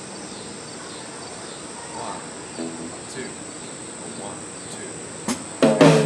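A steady, thin, high-pitched insect drone of crickets over a quiet pause. Near the end the band comes in with a few loud guitar chords as the song starts.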